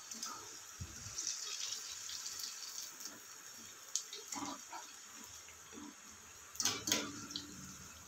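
Chakli deep-frying in hot oil in a steel kadai, a steady sizzle. A wire spider skimmer knocks and scrapes against the pan a few times, loudest about two-thirds of the way through.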